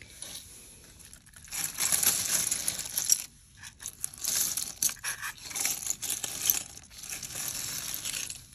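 A heap of mixed costume jewelry tipped out and spread by hand on a rubber mat: metal and plastic pieces clattering and jingling against each other with rustling, in repeated bursts that start about a second and a half in.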